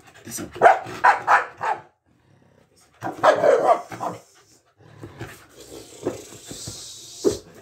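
Mixed-breed dog barking in a quick run of four or five sharp barks, with more excited noise a few seconds later, then scuffling as she jumps and lunges on her lead for the bite toy.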